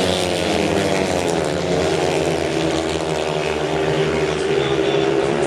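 Several sand-track racing motorcycles, 500 cc single-cylinder methanol engines, running at high revs together around the track, their overlapping engine notes forming a dense, steady drone whose pitches waver slightly.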